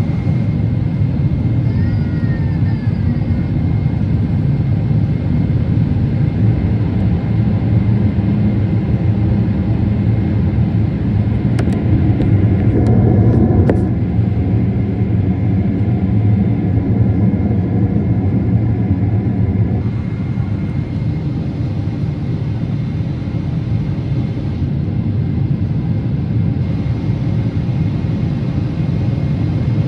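Steady low rumble of a moving vehicle, with a faint steady high tone over it and a brief swell about halfway through.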